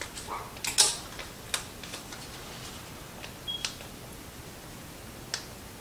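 A few scattered light clicks and taps from a packet of Mediterranean spice blend being shaken and tapped out over chickpeas. The loudest tap comes about a second in.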